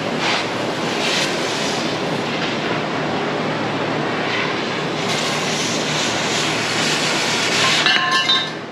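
Oxy-fuel cutting torch running with a steady loud hiss as it cuts through steel on the race car's front frame.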